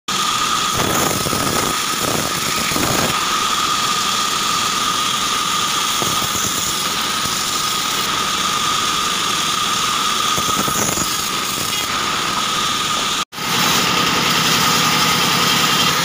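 Small belt-driven band sawmill running with a steady high whine, its blade cutting through short acacia logs in swells of louder sawing noise. After a sudden brief cut-out about 13 seconds in, the drive engine and belts are heard running with a lower steady hum under the whine.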